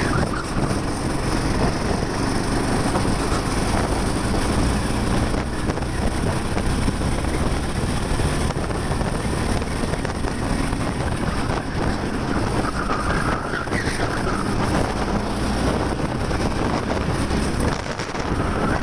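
A 13 hp kart engine running steadily under load as the kart laps the track, heard from the driver's helmet microphone with wind buffeting over it.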